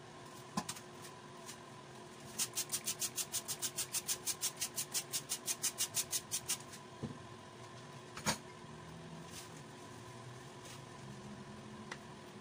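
A hand spray squirting a coating onto a roasting tin in rapid short bursts, about six a second for some four seconds. A sharp knock comes about eight seconds in, and a steady low hum runs beneath.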